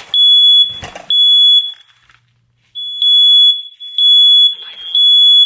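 Smoke alarm sounding: a loud, high-pitched beep repeating about once a second, with a short break about two seconds in. It was set off by smoke from a candle.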